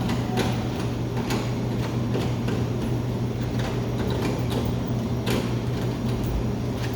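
Royal Vendors 376 soda vending machine running with a steady low electrical hum, with scattered clicks and knocks as the machine is handled.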